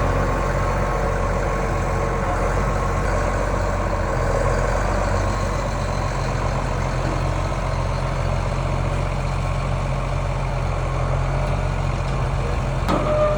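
Heavy engine idling steadily, with a single knock near the end.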